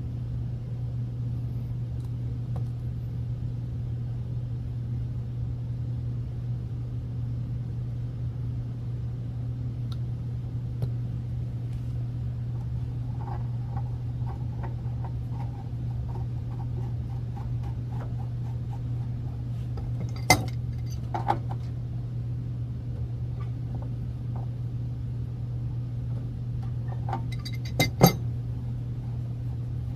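Metal tools and pipe fittings clinking sharply a few times, over a steady low hum, as a gas-line fitting on a water heater is tightened with a wrench.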